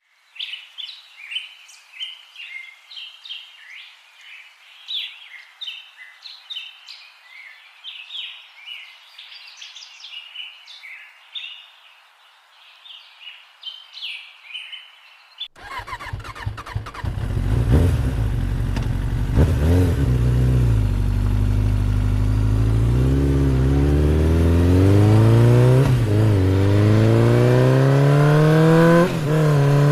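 Birds chirping for about the first half, then an abrupt cut to a motor vehicle engine running and accelerating, its pitch climbing steadily with a few short dips, like shifts up through the gears.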